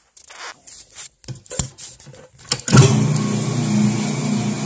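A few handling clicks and knocks, then about two and a half seconds in a rotary floor polishing machine's motor switches on and runs with a steady hum.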